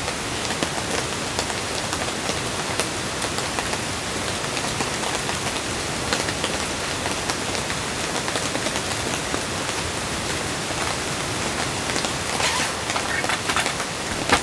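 Steady rain falling on the tent's fabric, with a few light knocks near the end.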